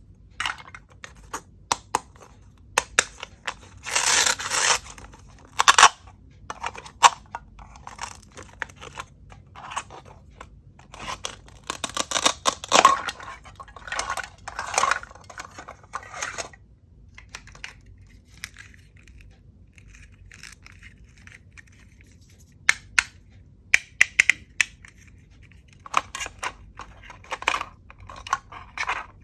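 Plastic toy fruits and vegetables being sliced apart, with short tearing rasps as pieces come apart and light plastic clicks and knocks, in irregular bursts. A quieter stretch with only a few clicks falls just past the middle.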